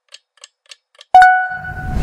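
Quiz countdown-timer sound effect ticking about three and a half times a second, then, a little after a second in, a loud bell-like chime that rings on and fades, marking the answer reveal, joined by a low rumble.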